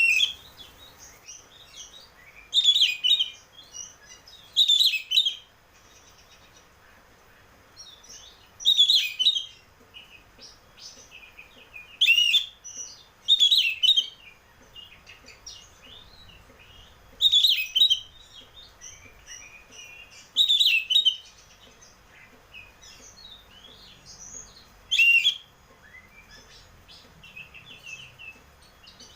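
Oriental magpie-robin (kacer) singing in the loud, open 'ngeplong' style: about nine short, loud, high phrases spaced two to four seconds apart, with soft twittering between them.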